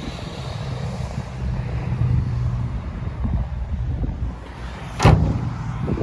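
Low, steady rumble of a truck engine, the Ram's 5.7 Hemi V8, running at idle, with wind buffeting the microphone. A single sharp thump about five seconds in.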